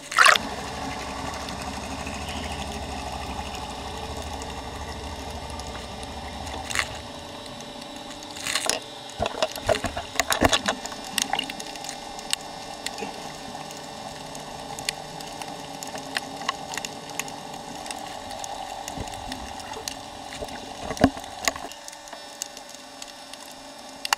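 Water heard underwater: a muffled, steady rush with scattered clicks and crackles, thickest about nine to eleven seconds in. A sharp burst comes right at the start, and a low hum runs under the first several seconds.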